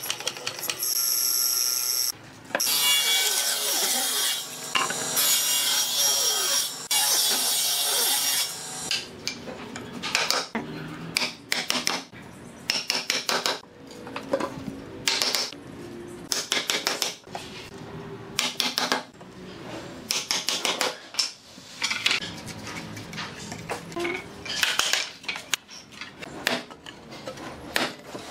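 Hollow-chisel mortiser cutting mortises into a wooden rail: a loud, steady cutting noise with rapid chopping. From about nine seconds in come irregular wooden knocks as pine slats are fitted and tapped into the mortises.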